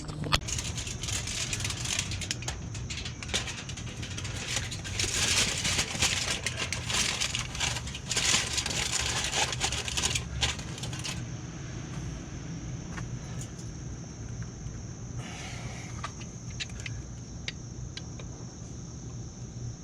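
Clinking, rattling and scraping of tools and motorcycle parts being handled, busiest through the first half, over a steady low hum.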